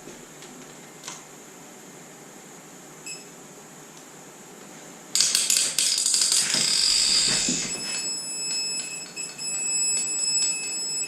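Torque wrench turning a cylinder-head bolt: a burst of rapid ratchet clicking, then a steady electronic beep from the wrench's digital angle gauge, held for about three seconds near the end, signalling that the bolt has reached its set angle. A short beep sounds about three seconds in.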